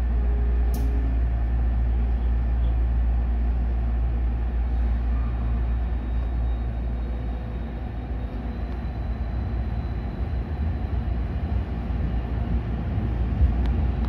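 Tokyo Metro 16000-series subway train heard from inside the driver's cab as it pulls away from an underground platform into the tunnel: a steady low hum and rumble, a sharp click about a second in, and a faint high whine in the middle.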